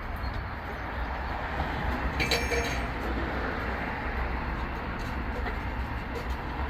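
Steady low rumble of tyre-shop workshop noise, with a brief higher-pitched ringing sound about two seconds in.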